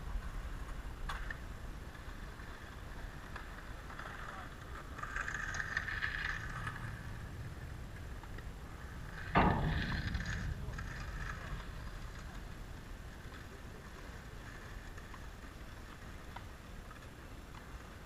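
A tennis racket striking the ball once, a sharp loud hit about nine seconds in, with a few much fainter clicks of distant shots at other moments.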